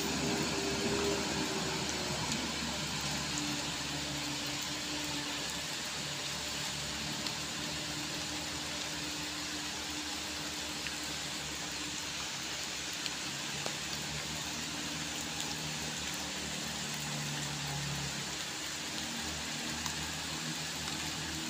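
Diesel engine of a heavily loaded light truck labouring up a steep wet climb, its low drone fading as it pulls away, under a steady hiss of rain.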